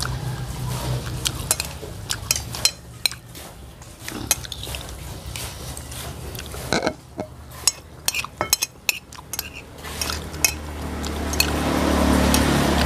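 Spoons clinking and scraping on plates during a meal, in many short, scattered clicks. Near the end a rushing, rustling noise rises and becomes the loudest sound.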